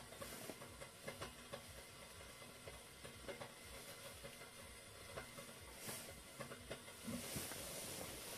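Kettle coming to the boil, a faint steady hiss that grows a little louder near the end, with a few light clicks.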